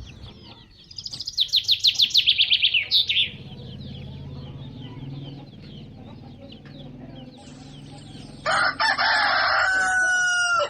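Bird calls: a rapid run of high, quick notes early on, then from about 8.5 s a loud harsh call that settles into a held, pitched note and cuts off at the end.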